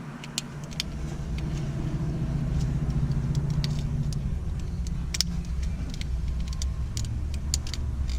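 A low, steady engine rumble of a motor vehicle that swells about a second in, with scattered small clicks and taps of plastic as the door lock switch housing is pried open to free its circuit board.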